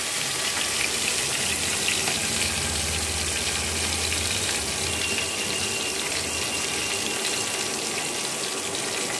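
Turmeric-coated tengra catfish pieces frying in hot oil in a karai: a steady, dense sizzle, with a low hum underneath for the first few seconds.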